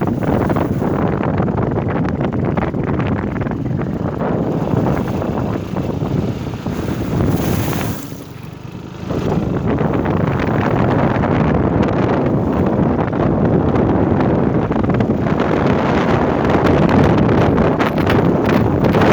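Wind rushing and buffeting over the microphone of a moving motor scooter. It drops briefly about eight seconds in, then comes back and grows stronger toward the end.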